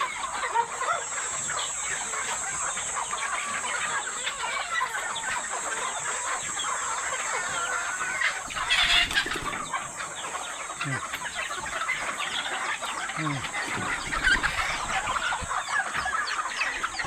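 A flock of chickens, Philippine native chickens and Dekalb brown hens, clucking continuously, many calls overlapping, with a louder squawk about halfway through.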